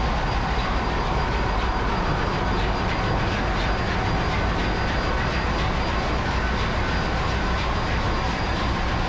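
Steady engine-room noise from the running main-engine turbocharger and the MAN B&W 7S60MC-C two-stroke diesel main engine: a heavy low rumble with a thin, steady high whine on top.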